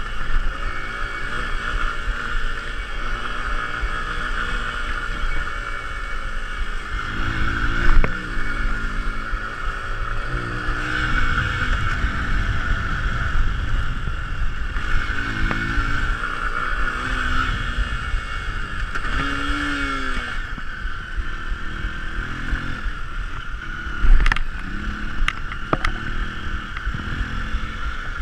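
Hero Impulse's 150 cc single-cylinder engine running under throttle on a rough dirt trail, its pitch rising and falling repeatedly as the rider works the throttle. Two sharp loud knocks stand out, about eight seconds in and again about twenty-four seconds in.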